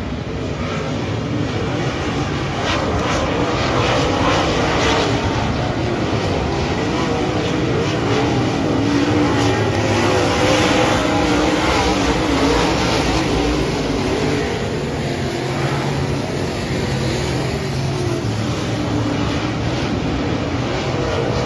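A pack of dirt-track race cars running hard around the oval, several engines at once, their pitch wavering up and down as they power through the turns and down the straights. The sound swells as the pack comes past, loudest in the middle.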